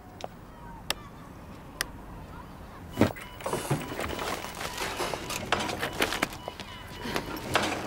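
A heavy apartment-building entrance door with an intercom lock clunks open about three seconds in. A faint steady electronic tone follows, along with clicks, rustling and steps as someone comes out through the door.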